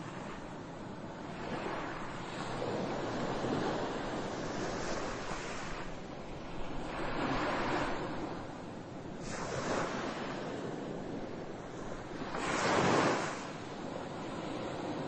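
A steady rushing noise that swells and fades about five times, each swell a couple of seconds long, the loudest near the end.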